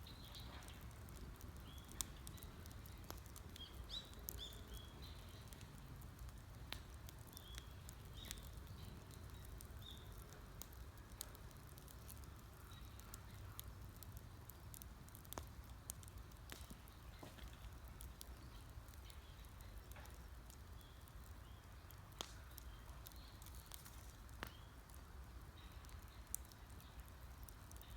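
Wood campfire crackling faintly, with scattered sharp pops of burning wood. Small birds give short chirps in the background, mostly in the first third and again near the end.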